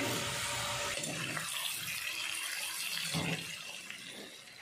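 Pork pieces frying in oil in a wok, a steady sizzle that fades away near the end.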